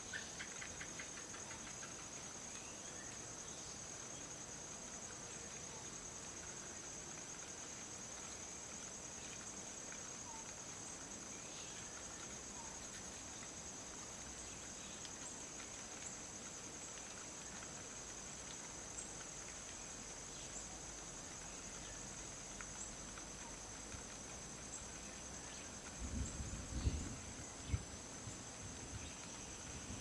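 Steady high-pitched drone of an insect chorus, crickets or cicadas, with a few faint short chirps scattered through it. A short cluster of low thumps, the loudest sound, comes near the end.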